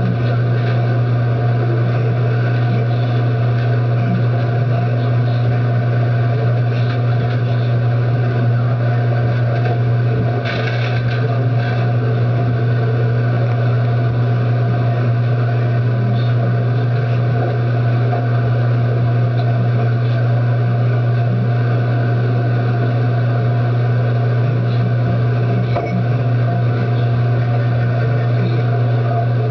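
A steady, loud low hum with a hiss over it, unchanging throughout, with a brief scratchy noise about ten seconds in.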